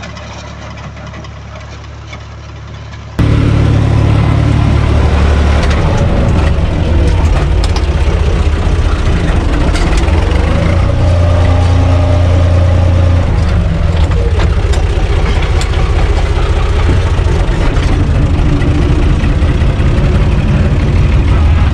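UTB Universal 445 DT 4x4 tractor's diesel engine running steadily, at first heard from a distance while it tills with a rear rotary tiller, then about three seconds in suddenly much louder and closer, heard from inside the cab.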